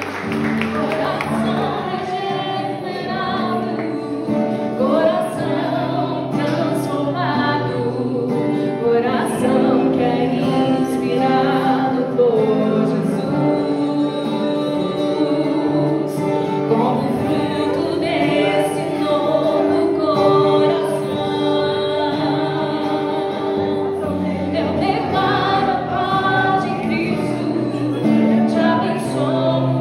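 A Christian worship song: voices singing together over instrumental accompaniment, with sustained held notes.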